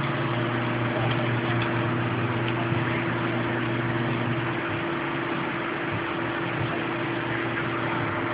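Steady background hum and hiss: a low drone with a few fixed tones over an even hiss, unchanging throughout.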